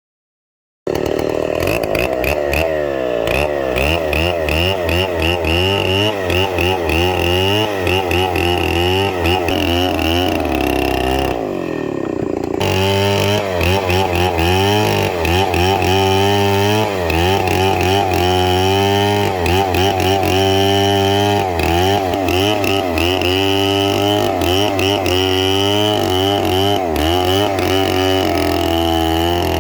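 Chainsaw running at high speed while cutting wood, its engine pitch wavering up and down under the load. It starts abruptly about a second in and drops off briefly near the middle before running on.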